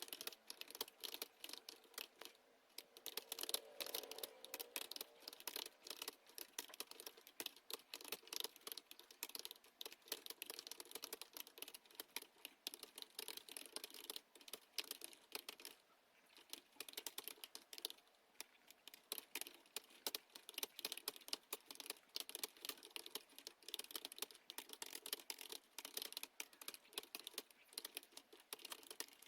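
Computer keyboard being typed on quickly and continuously, a dense irregular patter of key clicks with a couple of brief pauses, during a timed typing-speed test.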